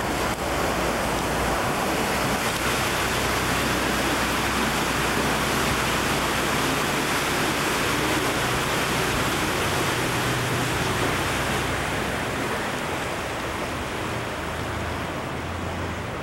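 Steady rushing noise of a canal tour boat under way, heard from on board: a low engine hum under the wash of water, easing slightly near the end.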